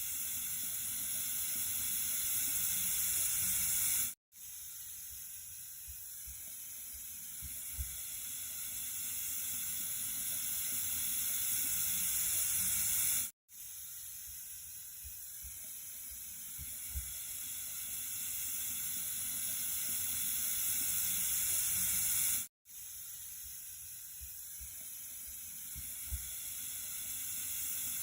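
Flowing water with a steady high hiss, repeating as a loop. The sound cuts out for a split second three times, about every nine seconds, and swells slightly through each pass.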